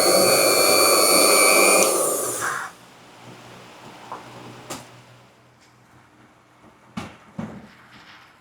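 A loud motor-driven machine running with a rushing air noise and a steady high whine, which shuts off about two seconds in. A few sharp clicks follow against quiet factory background.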